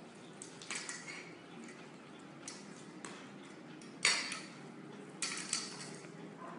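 Metal dog bowl clinking as a dog eats from it and the bowl is handled: about six short, sharp metallic clinks, the loudest about four seconds in as the bowl is lifted.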